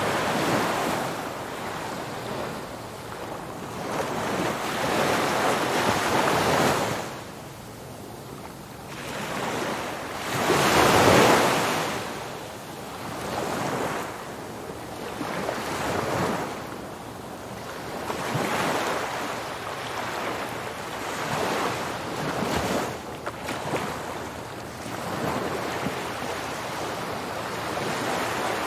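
Ocean surf on a beach: waves breaking and washing in, rising and falling in repeated surges every few seconds, the biggest one about eleven seconds in.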